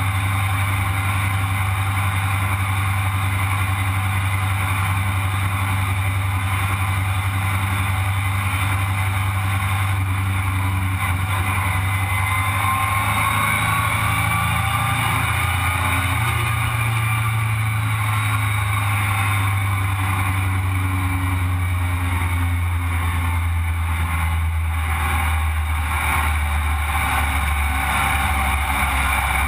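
Sandrail's engine running steadily while driving on the road, heard from on board the open buggy. Its note rises a little about halfway through and eases back near the end.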